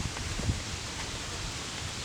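Steady rustling, hissing outdoor noise with a couple of soft low knocks near the start.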